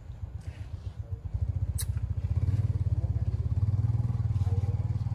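An engine running with a fast low pulse, growing louder about two seconds in, with one sharp click a little before that.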